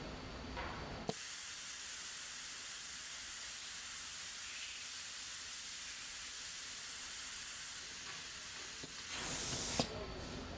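Heat-staking machine's punch running a heat-and-cool cycle: a steady hiss of air that switches on with a click about a second in, swells briefly near the end and cuts off with another click.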